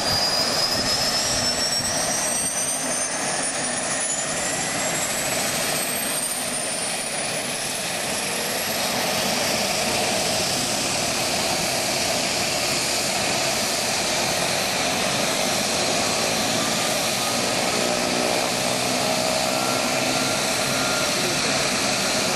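Pilatus PC-9 turboprop engines starting up on the ground: a high turbine whine rising steadily in pitch over the first several seconds, then settling into a steady turboprop idle with propellers turning.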